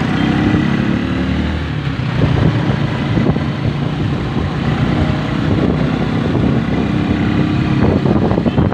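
A motor vehicle engine running steadily amid street traffic noise.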